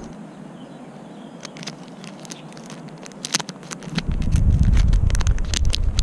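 Scattered light clicks and crackles, joined about four seconds in by a louder low rumble of wind on the microphone.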